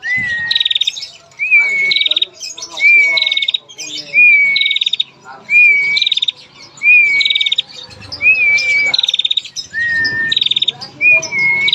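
Female prenjak (prinia) calling in its cage, repeating the same phrase about every second and a half: a short whistled note running into a fast, dry rattling trill, the 'ngetir' call.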